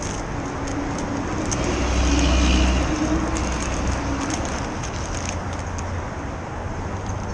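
Street traffic: a passing motor vehicle's low rumble swells to a peak about two seconds in and then fades, over a steady background of road noise, with faint small ticks and clicks from parts being handled close by.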